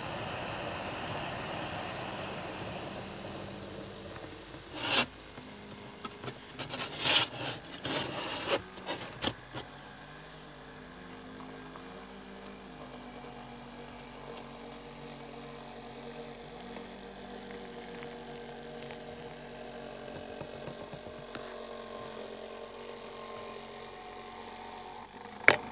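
Steady noise of building workers' machinery, with a run of sharp scraping knocks about five to nine seconds in, then a quieter steady hum.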